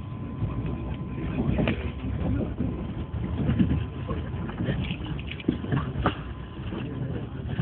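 Passenger train running, heard from inside the carriage: a steady low rumble with irregular clacks and knocks.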